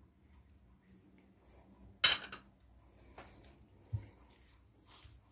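Hand mixing raw chicken thighs with marinade in a glass bowl: one sharp clink against the glass about two seconds in, then a couple of softer knocks.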